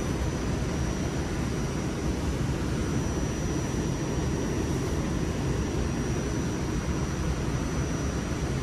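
Steady interior noise of a Staten Island Railway subway car at the platform: a dense low rumble with a thin, high, steady whine over it.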